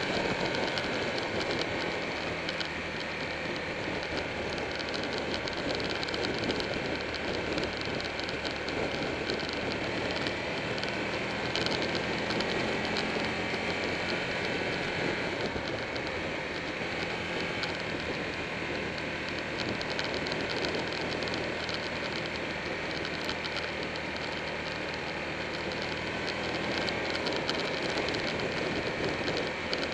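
Steady wind and road noise rushing over a motorcycle-mounted camera, with a Buell 1125R's V-twin engine running underneath at a steady cruise.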